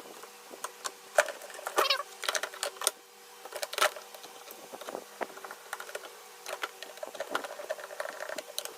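Irregular clicks, knocks and rattles of screws and metal parts being handled and fitted while a refrigerator panel is screwed back on, with a brief whirring tone about two seconds in.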